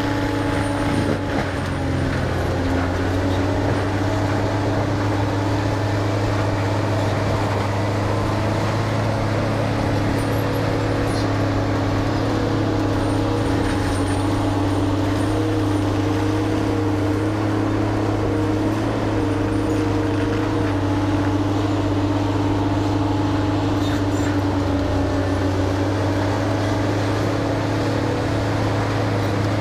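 The engine of a heavy tree-removal and root-grinding machine running steadily at a constant pitch, with no break.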